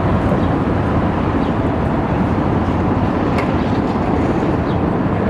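Steady low rumble of a local freight train crossing the Steel Bridge.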